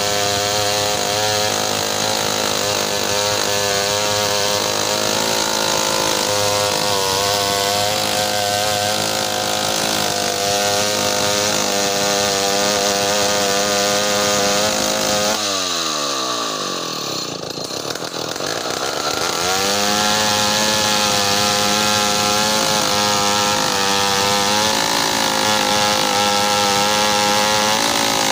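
Large two-stroke chainsaw running at high revs, ripping lengthwise along a meranti log to cut planks. About halfway through, the engine note falls away steeply for a few seconds, then climbs back up to full speed.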